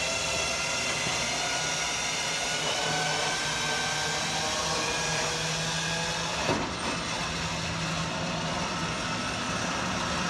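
Powered lift of a hitch-mounted motorcycle carrier running steadily with a whining hum as it raises its deck, loaded with two motorcycles, from ramp position to level. A brief clunk about six and a half seconds in.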